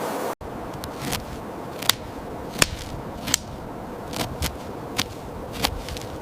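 A series of about a dozen sharp, irregular clicks or snaps over a faint steady hiss.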